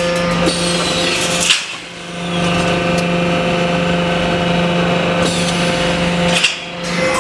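DP-1200G heavy steel grating resistance welding machine running with a steady mechanical hum. A short sharp clank comes about a second and a half in and again near the end, each followed by a brief quieter moment.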